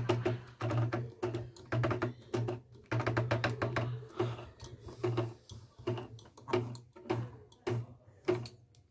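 Elnoss portable embroidery machine's needle-bar mechanism running slowly, its motor humming in short stop-start bursts with a sharp clack about twice a second.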